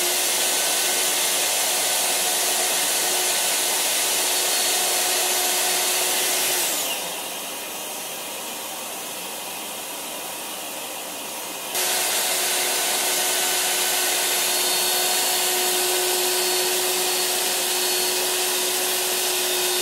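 Plunge router running steadily with a constant whine, cutting a T-track dado in plywood. About a third of the way through it is switched off and winds down in falling pitch, leaving a quieter steady hiss. A few seconds later it starts again abruptly and runs on.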